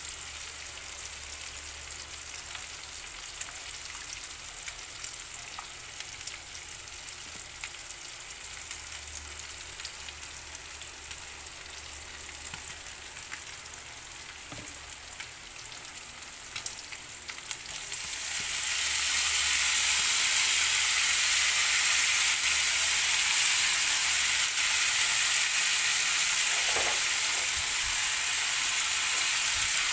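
Ground pork and onion frying in a nonstick pan, a steady sizzle with small crackles. About two-thirds of the way through, the sizzle suddenly gets much louder and hissier, with diced potatoes now in the pan.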